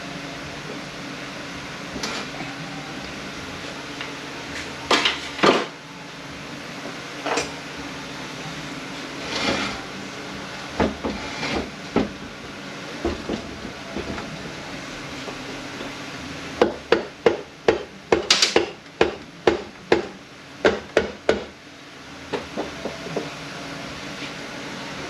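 Hand tools and metal transmission parts knocking and clanking during a teardown: a few scattered knocks, then a quick run of about a dozen sharp knocks, roughly two or three a second, in the second half, over a steady shop hum.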